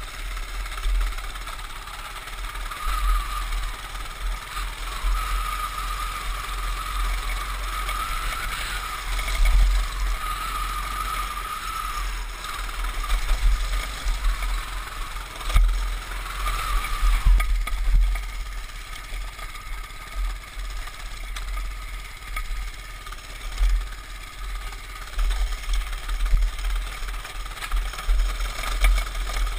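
Baja mini bike's small single-cylinder engine running while riding over rough grass, its pitch rising and falling with the throttle. Heavy low rumble and a few knocks over bumps, mostly in the middle.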